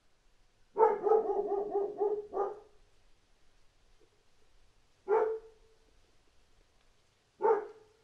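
A dog barking: a quick run of about eight short, pitched yaps in a second and a half, then two single barks a couple of seconds apart.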